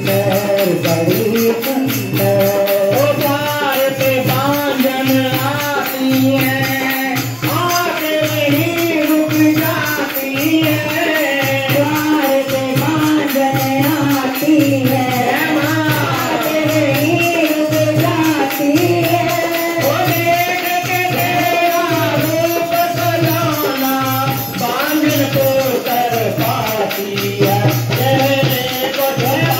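A man singing a Hindi devotional bhajan through a microphone and PA, over a steady low beat and shaken tambourine-like jingles.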